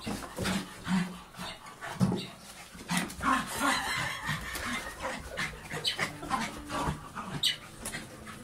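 Jack Russell terrier playing with a football: short low dog vocal sounds mixed with knocks and scuffles of the ball and paws.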